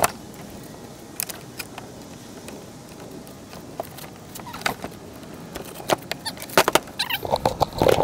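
Plastic milk crate being worked loose and lifted out of its mount on a kayak: scattered clicks, knocks and rattles of hard plastic and the gear clipped to it, with a busier run of knocks near the end.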